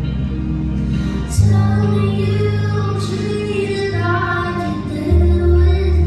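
Live pop song played over a venue sound system, a woman singing over a backing track with long, deep bass notes that change pitch twice.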